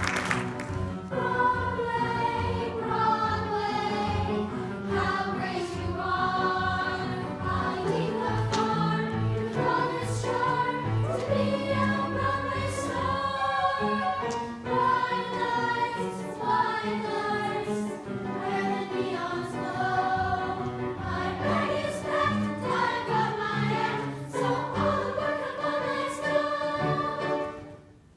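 A group of young voices singing a song together in unison over instrumental accompaniment with a steady bass line; the music stops near the end.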